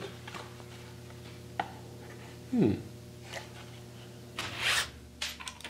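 Plywood press dies and a thin sheet-metal blank being handled and pulled apart at a hydraulic shop press: a single light click, then a short scraping rub of wood about four and a half seconds in, followed by a few small clicks near the end.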